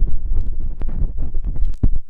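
ASMR ear-massage sounds: close rubbing on the microphone, a deep rumble with irregular crackles and clicks.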